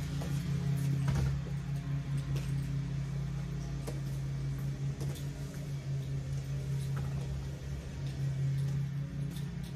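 Wheels of two Onn large party speakers rolling over a concrete sidewalk, rumbling with scattered clicks and rattles as they cross the joints. A steady low hum sounds throughout.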